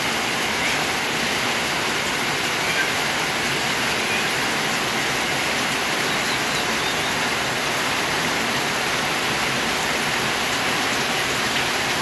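Steady heavy rain falling on a corrugated sheet-metal roof and running off its edge onto a muddy yard, an even rushing hiss with no change.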